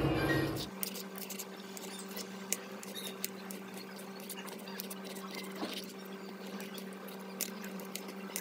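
Knife chopping a peeled roasted green pepper on a granite countertop: irregular light taps of the blade against the stone. A steady low hum sounds underneath.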